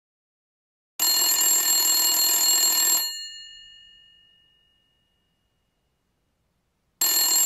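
Old-style desk telephone's bell ringing: one two-second ring about a second in that dies away slowly, then a pause, and a second ring starting near the end.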